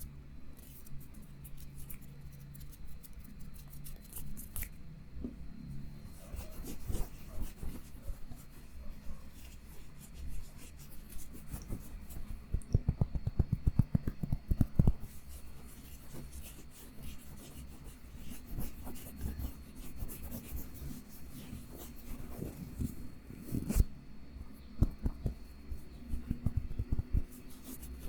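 Close-miked scratching and rubbing with scattered clicks, and a fast run of taps about halfway through.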